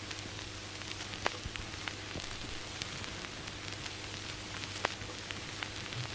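Steady hiss with scattered sharp clicks and crackles over a low hum.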